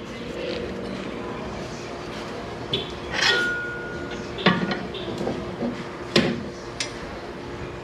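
Metal-on-metal clinks and knocks of a steel bolt and suspension parts being handled while fitting a steering knuckle to a strut: four or so sharp metallic strikes, the first about three seconds in ringing briefly.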